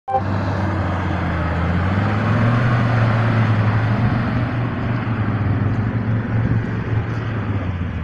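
Off-road SUV engine running under heavy, steady load as the vehicle churns through deep mud on mud-terrain tyres. The note rises slightly about two seconds in and then holds.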